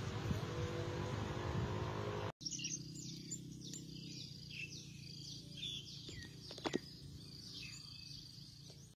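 Outdoor ambience with a steady low rumble that breaks off about two seconds in. Then birds chirp repeatedly, short high calls, over a quieter steady hum, with a couple of sharp ticks a little before the end.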